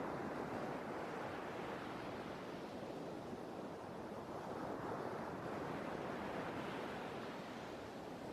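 Sea waves washing ashore in a steady surf, the wash swelling and easing slowly, building again about five seconds in.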